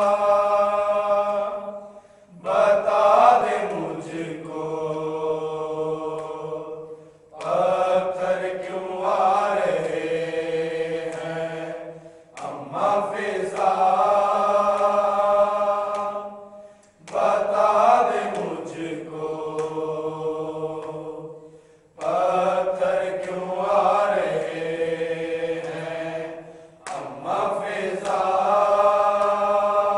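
Group of men chanting an Urdu noha (Shia lament) without instruments. Long drawn-out phrases each start strong and fade, with a short break for breath about every five seconds.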